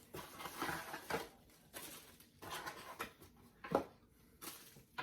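Packaging rustling and being handled as LED turn signals are unboxed: scattered soft crinkles and scrapes, with one sharper click about three and a half seconds in.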